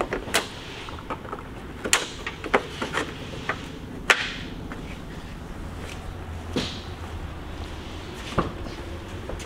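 Plastic headlight housings of a Chevy Silverado knocking and clicking as they are pushed and seated into the truck's front end: a run of sharp knocks in the first few seconds, the loudest about four seconds in, then a few scattered ones.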